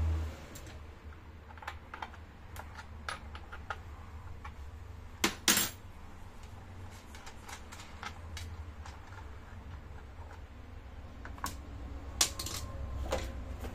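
Scattered small clicks and knocks of plastic and metal as the sprocket cover of a Stihl MS 271 chainsaw is unfastened and lifted off. There are two louder knocks about five and a half seconds in and another sharp one near the end, all over a low steady hum.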